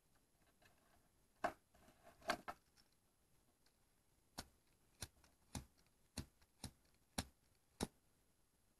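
Disposable flint lighter being flicked: about seven sharp clicks of the striker wheel, roughly two every second, with the flame catching near the end. A few irregular clicks from handling the plastic lighter come first.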